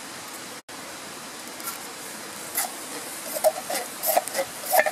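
Baked beans being spooned into a hot steel frying pan on a wood-burning firebox stove: a scatter of short wet plops, clicks and scrapes of the utensil against the pan over a steady low hiss.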